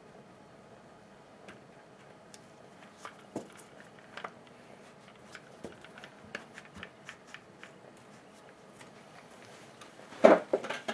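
Scattered light clicks and ticks of hands handling small plastic and metal parts of a hedge trimmer while routing its throttle cable, with a louder knock and rattle about ten seconds in.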